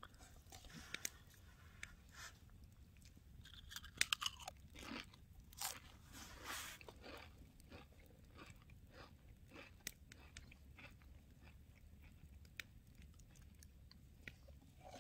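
Pringles potato chips being bitten and chewed: a run of crisp crunches and crackles, loudest a few seconds in, then lighter chewing clicks.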